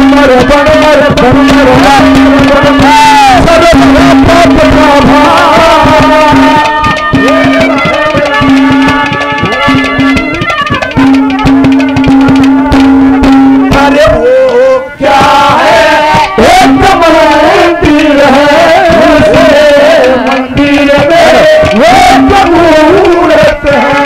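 Live Haryanvi ragni folk music: hand drums under a bending melody line and a steady held drone note that drops out and comes back several times.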